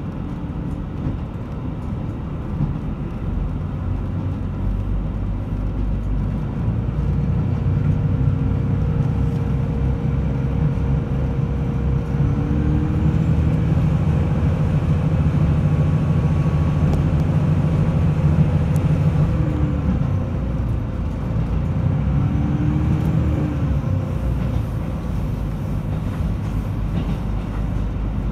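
Interior sound of a KiHa 75 diesel multiple unit running on the line: diesel engine drone and steady wheel-on-rail rumble. It grows louder through the middle stretch, with a few brief gliding tones over the rumble.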